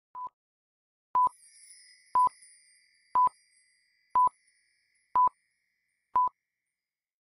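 Film-leader countdown beeps: short, high electronic beeps, one each second, seven in all, the first fainter. A faint high shimmer sounds behind the early beeps.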